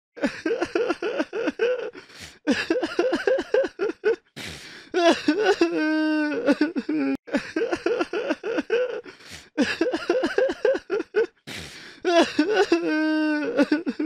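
A person crying: quick stuttering sobs broken by sharp gasping breaths, with a long drawn-out wail about six seconds in and another near the end.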